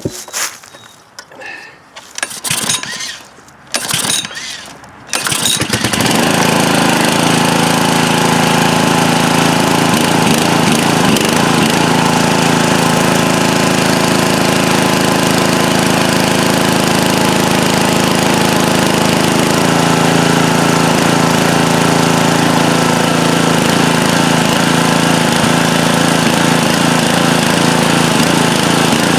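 Honda GC160 single-cylinder four-stroke engine on a pressure washer being recoil pull-started, choked. A few short pulls, then it catches about six seconds in and runs steadily. Its note changes once about two-thirds of the way through.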